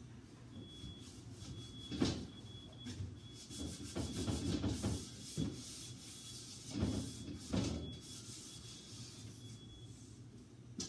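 Rubbing and scrubbing with a few knocks from fridge cleaning, and a faint repeated high-pitched beeping from construction equipment outside heard through an open window, stopping near the end.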